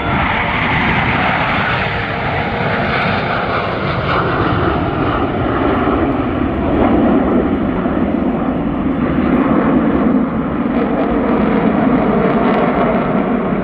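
Blue Angels F/A-18 Super Hornet jets flying past, a loud, steady jet roar whose pitch drops about halfway through as they go by.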